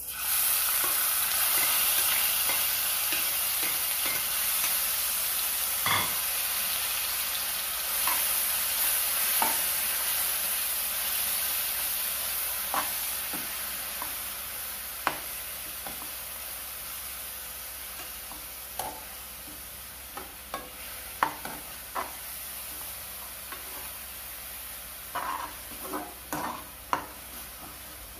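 Chopped onions, green chillies, garlic and ginger hitting hot coconut oil in a nonstick kadai and sizzling, the sizzle starting suddenly and slowly dying down as the oil cools under the vegetables. A metal slotted spoon stirs and clicks against the pan, more often near the end.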